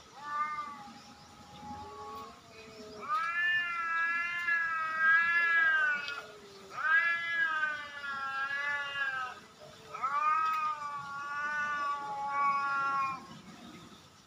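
Cat caterwauling at another cat: a couple of shorter calls, then three long, wavering, drawn-out yowls of two to three seconds each.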